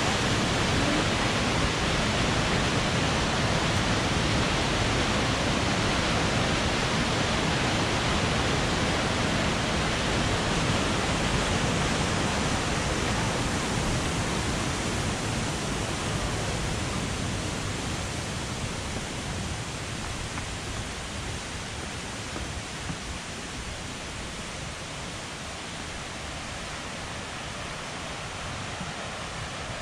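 Rushing water of a canyon creek and its falls: a steady, even rush that grows gradually fainter through the second half.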